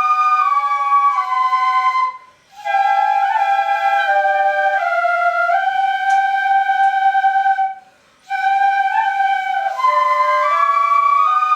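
Ensemble of shinobue, Japanese bamboo transverse flutes, playing a slow melody in harmony with held notes. The playing breaks off briefly between phrases, about two seconds in and again about eight seconds in.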